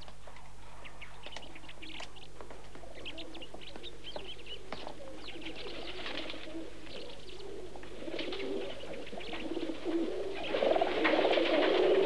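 Small birds chirping in short, scattered calls, then pigeons cooing, growing louder over the last few seconds.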